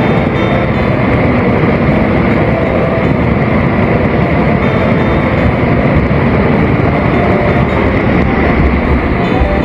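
Loud, steady rush of running water at a dam.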